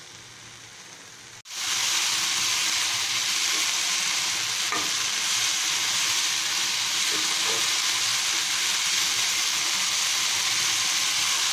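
Mint and coriander leaves with dried red chillies sizzling in oil in a frying pan, sautéed until their water has cooked off. A soft sizzle for about the first second and a half, then after a sudden break a much louder, steady sizzle.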